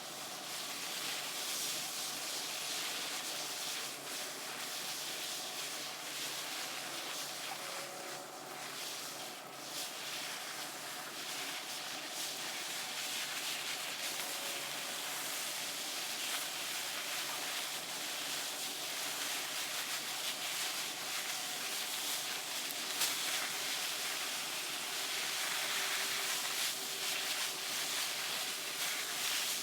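Steady hiss of water spraying from a garden hose onto potted mums.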